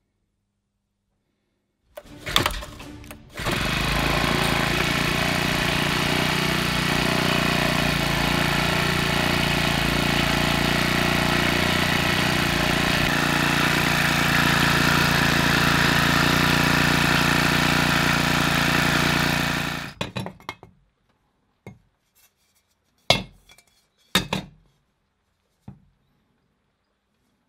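Small strimmer-type petrol engine catching after a brief sputter about two seconds in, then running steadily for about sixteen seconds before it cuts off. A few short metallic clinks and knocks follow near the end.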